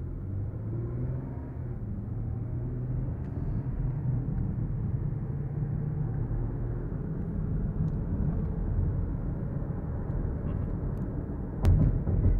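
Steady low rumble of a car heard from inside the cabin, engine and road noise with no speech. A short sharp knock comes near the end.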